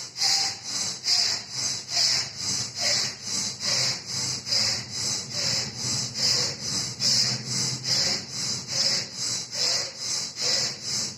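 Rapid, forceful breathing through the left nostril alone, the right nostril held shut with the thumb (vama bhastrika pranayama): hissing breaths out and in, in an even rhythm of alternating stronger and weaker strokes, a little over one breath cycle a second.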